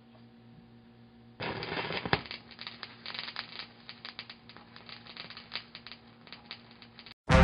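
Stylus set down on a spinning vinyl record about a second and a half in, followed by the crackle and pops of the record's surface noise in the groove; before it, only a faint steady hum. The crackle cuts off abruptly just before the end.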